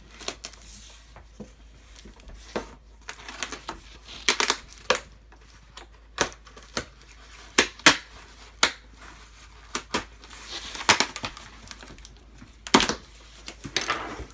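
Cardboard shipping box being opened by hand: packing tape torn and cardboard flaps crackling and knocking. The sound is a string of irregular sharp snaps and taps, with a few longer rasping tears.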